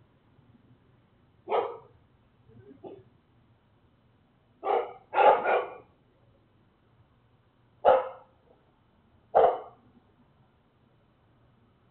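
A dog barking, loud single barks spaced a second or more apart, about seven in all. One fainter bark comes near three seconds in and a quick pair about five seconds in.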